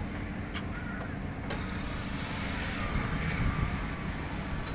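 Low steady mechanical hum, with two sharp clicks about a second apart near the start.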